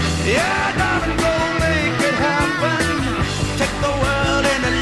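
Rock music soundtrack: drums and bass under a lead line that slides up and down in pitch.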